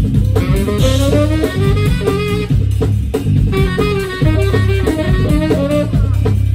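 Live jazz band playing: a tenor saxophone plays a moving melody over a drum kit and a heavy, steady bass.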